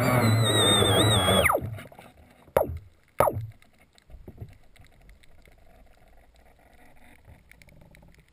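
Electric RC boat motor whining at speed, heard underwater; about a second and a half in its pitch drops steeply as the motor shuts off and spins down. Two sharp knocks follow, then only faint underwater noise.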